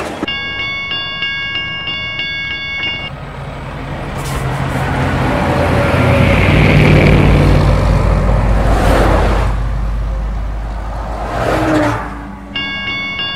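A level-crossing warning bell rings in a steady pulsing pattern and stops about three seconds in. A lorry's diesel engine then grows louder as it drives past and fades away, with a short hiss of air twice, before the crossing bell starts ringing again near the end.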